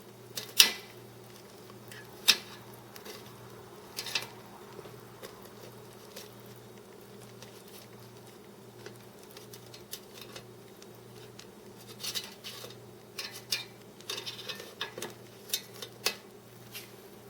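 Air fryer pot stickers being flipped in the metal basket: sharp clicks and clatter of a utensil on the basket. There are a few single clicks early on, then a busier run of clatter near the end, over a steady low hum.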